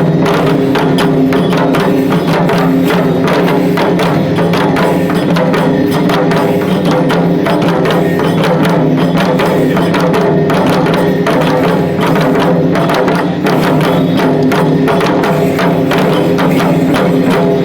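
Shishimai lion-dance accompaniment: drums struck in a dense, fast, unbroken rhythm, with steady held tones underneath.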